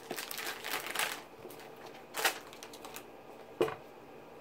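Hands handling and turning a white cardboard iPhone box: short rustles and scrapes of fingers on the card, then a single sharp knock about three and a half seconds in as the box is set down on the table.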